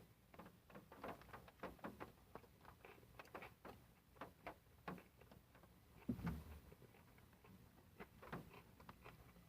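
Faint, irregular crackling and clicking of someone chewing a bite of a crispy fried chicken sandwich.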